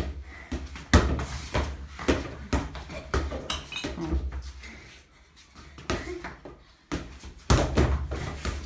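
A ball being kicked and striking hands, the tile floor and the wall, mixed with scuffing footsteps and a child landing on the tiles during a dive. The loudest thuds come about a second in and again near the end.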